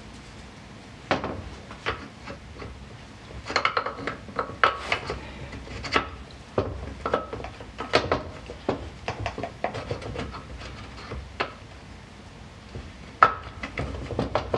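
Metal engine parts clinking, knocking and scraping as a KA24E oil pump and front cover are handled and fitted onto a distributor drive gear. Irregular clicks begin about a second in, some ringing briefly, with one sharp knock near the end.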